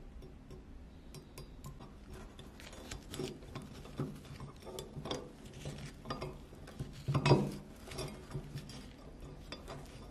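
Small metal clinks, taps and scrapes as the rusty cast-iron parts of a mechanical coin bank's eye mechanism are handled and worked apart, with a louder clatter about two-thirds of the way through.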